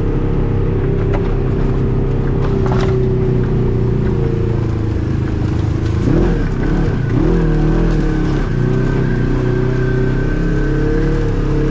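Off-road vehicle engine running under load, its pitch rising and falling a few times around the middle as the throttle changes, with a couple of knocks from the machine.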